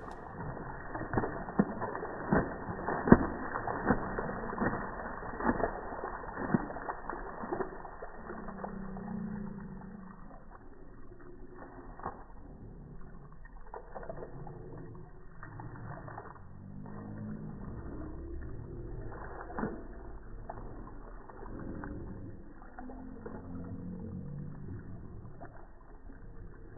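Slowed-down, deep-pitched sound of a wet dog at a pool's edge: a quick run of sharp splashes and drips over the first eight seconds or so, then low, drawn-out smeared sounds, all with no crisp high end.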